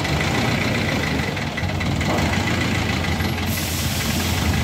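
Hyster forklift's engine running steadily at idle, a low even drone.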